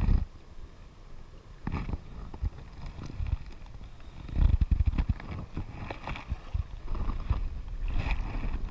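Shallow sea water lapping and splashing close to a camera held just above the surface, with low wind rumble on the microphone and scattered light knocks. The rumble surges about halfway through and grows toward the end.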